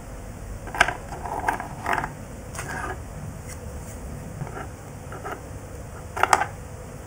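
Hands handling the plastic case of a Walkera Devo 7E radio-control transmitter on a tabletop: scattered short clicks and knocks of plastic, the loudest just under a second in and a quick cluster near the end.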